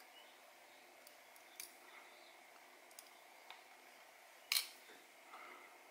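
A few small, sharp clicks of metal tweezers on the parts of a quartz watch movement, the loudest about four and a half seconds in, over faint room hiss.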